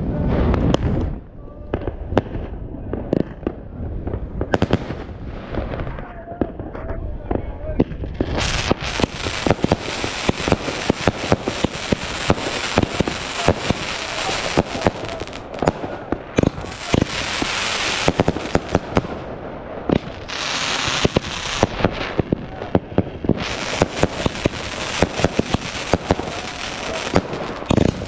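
Fireworks going off: aerial shells bursting with repeated sharp bangs, sparser at first. From about eight seconds in they merge into a dense, continuous crackle with rapid bangs.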